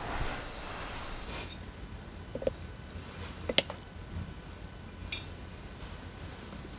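A brief rustle, then a few light clicks and clinks of hand tools and small metal engine parts being handled, the sharpest about three and a half seconds in.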